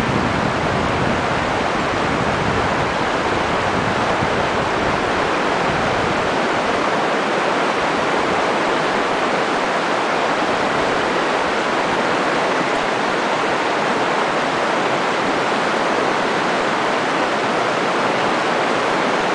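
Shallow river rushing steadily over rocks and rapids, an even, unbroken rush of water. A low rumble underneath dies away about six seconds in.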